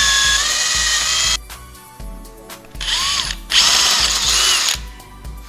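Handheld power drill boring out a hole in a metal bracket, stepping up the bit size from a pilot hole. It runs in three bursts with a whine that rises as the motor spins up: a long one that stops about a second and a half in, a short one near the middle, and about a second more later.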